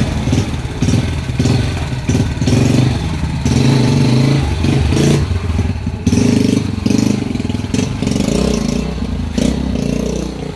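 Honda Win 100 motorcycle's single-cylinder four-stroke engine revved in repeated surges as the rider pulls away and rides off.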